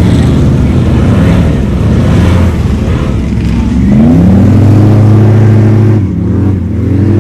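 An off-road vehicle's engine revving hard: its pitch climbs about four seconds in and holds high for about two seconds, falls back, then climbs again near the end.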